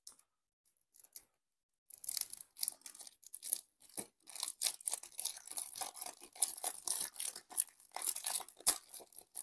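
Crinkling, rustling and tearing of board game packaging (paper and plastic wrap) being handled and pulled open, starting about two seconds in, with one sharper knock near four seconds.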